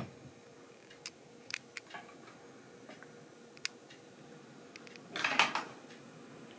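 Kittens scuffling on a fleece blanket: a few light, sharp clicks, then a short burst of rustling about five seconds in.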